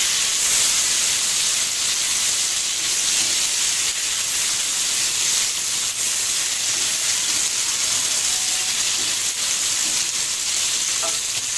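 Sliced tomato and chillies frying in hot oil with garlic and shallots in a wok, stirred with a spatula: a steady sizzling hiss.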